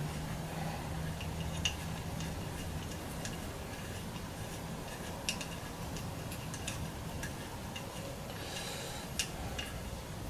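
Scattered light metallic clicks and taps of small cap screws being handled and started by hand in an aluminium stepper-motor mount.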